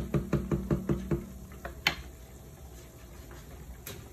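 Wooden spoon stirring tomato sauce in a stainless steel pot, knocking against the pot in a quick, even rhythm of about seven strokes a second that stops a little over a second in. Two single sharp clicks follow, one near the middle and one near the end.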